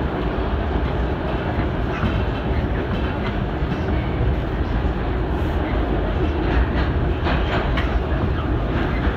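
Train running on the rails: a steady rumble with wheels clicking over rail joints, a cluster of clicks about six and a half to eight seconds in.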